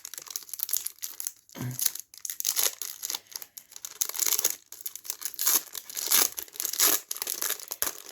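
Foil wrapper of a trading-card booster pack being torn open and crinkled by hand, a dense, irregular crackling.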